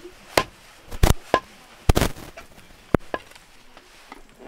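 A large knife chopping raw chicken on a round wooden block: about half a dozen sharp, irregularly spaced chops, the blade striking through the meat into the wood, bunched in the first three seconds or so.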